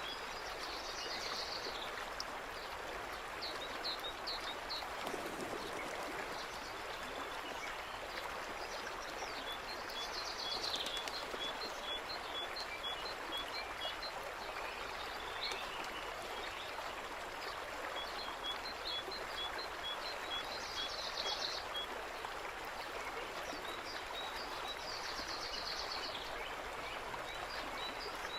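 A steady rushing outdoor hiss, like a stream, with small birds calling over it. A short buzzy song phrase comes back every several seconds, and there are runs of evenly spaced short chirps, about three a second.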